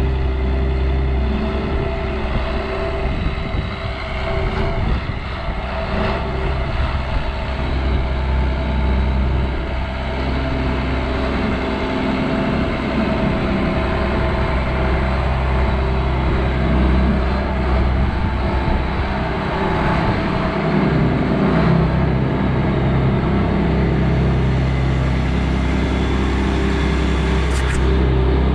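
Combine harvester's diesel engine running steadily as the machine is driven, a loud, even drone.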